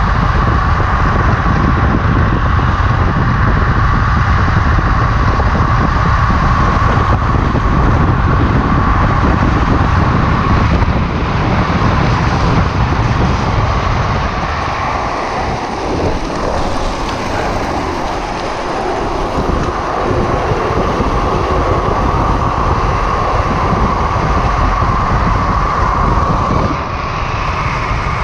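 Drift trike rolling fast down an asphalt road: a steady whirring rush of wheels on the road surface with heavy wind rumble on the microphone. The wind rumble eases for a few seconds around the middle, then builds again.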